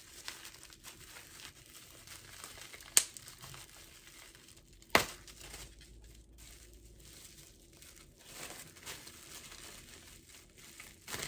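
Faint rustling and crinkling of a small pouch and its packaging being handled as a pair of earrings is taken out, with two sharp clicks about three and five seconds in.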